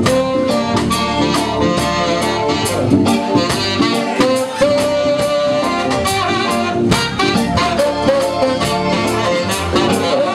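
A live band playing up-tempo with a full drum beat: saxophone and trombone horn lines over electric guitar and bass guitar.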